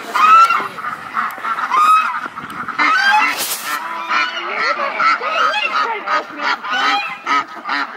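Geese honking over and over, several birds calling over one another, the calls coming quicker and closer together in the second half, with a short hiss about three and a half seconds in.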